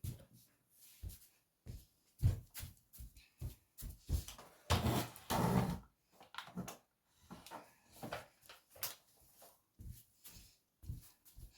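Irregular knocks, clatter and scraping from objects being handled, with a louder stretch of rustling and scraping about five seconds in.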